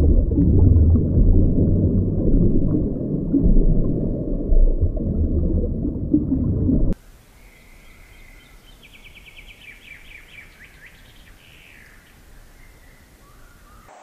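Loud low rush of underwater noise that cuts off abruptly about seven seconds in. Then a quieter stretch where a barn swallow calls: a short high note, then a quick run of high twittering chirps a couple of seconds later.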